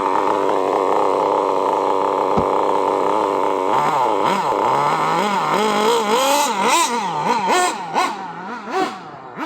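Radio-controlled car motor running at a steady pitch, then revved up and down in quick repeated blips from about four seconds in.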